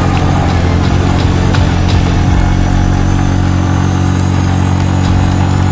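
A motor engine running steadily at a constant speed with an even, unchanging drone and no revving.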